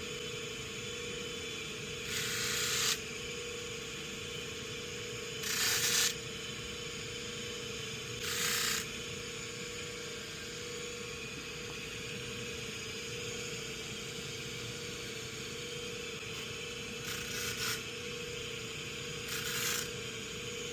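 Five short abrasive strokes on a steel 1911 part, each under a second. Three come in the first half and two near the end, with a long gap between them, over a steady low hum.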